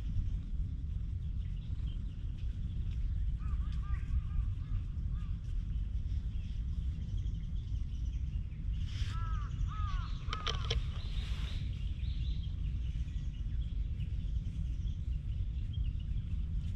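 A crow cawing several times in a quick run about nine seconds in, with fainter calls around four seconds in, over a steady low rumble.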